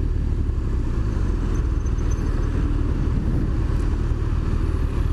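BMW R1200RT boxer-twin motorcycle under way: a steady low rumble of engine and wind noise picked up on the rider's microphone.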